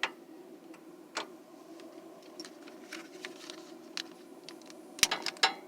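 Clicks from lighting a propane stove burner: scattered single clicks, then a quick run of louder clicks about five seconds in. A steady low hum runs underneath.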